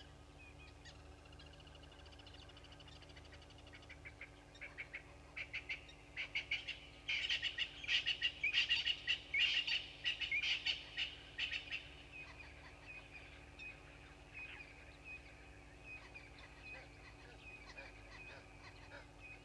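Birds calling in a rapid run of loud, repeated calls that builds from a few seconds in, is loudest near the middle and then fades out. A thin, steady high trill carries on after the calls die away.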